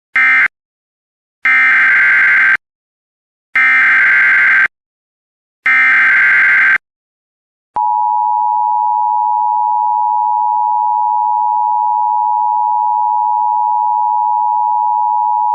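Emergency Alert System signalling: a short data burst, then three one-second bursts of the screeching SAME data header. From about 8 seconds in comes the steady two-tone EAS attention signal (853 and 960 Hz together), held without change.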